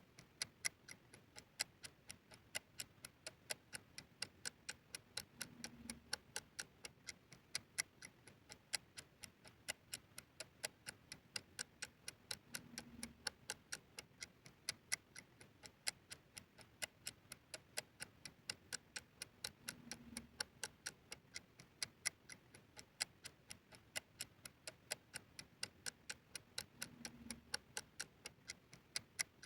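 Time bomb ticking sound effect: even, sharp clock-like ticks, about three a second. A faint low hum swells briefly about every seven seconds.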